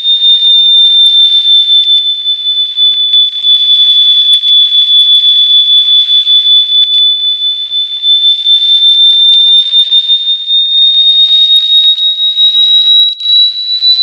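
A loud, very high-pitched electronic pure tone held without a break. Its pitch sags slightly in the middle and then creeps slowly upward in the second half, with a faint hiss around it.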